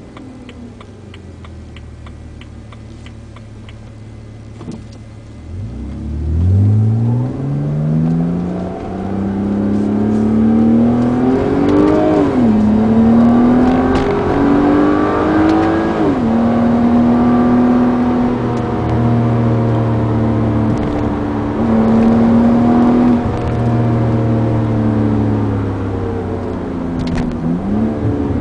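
BMW E90 328i's 3.0-litre inline-six, with gutted primary catalytic converters and an Ikon exhaust, heard from inside the cabin: idling with a light regular ticking, then pulling away about six seconds in, the revs climbing and shifting up twice before settling into a steady cruise, with the revs dropping near the end.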